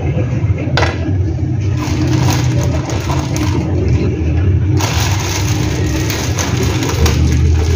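A steady low rumble, with a sharp click about a second in and rustling handling noise as slices of bread are taken from a plastic-wrapped loaf and laid on a plate.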